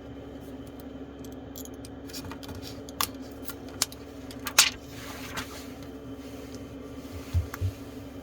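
Scattered light clicks and taps of small hard objects being handled, the loudest about four and a half seconds in, with two soft thumps near the end, over a steady low hum.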